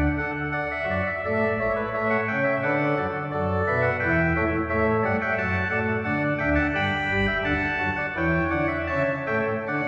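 Organ music: held chords over a bass line that steps from note to note every half second to a second.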